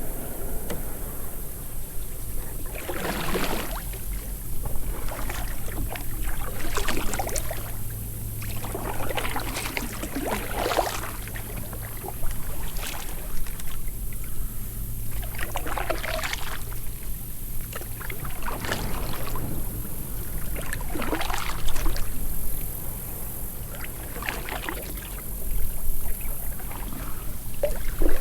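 Kayak paddle strokes, a rhythmic swish and splash of the blades in the water about every two to three seconds, with the kayak gliding between strokes.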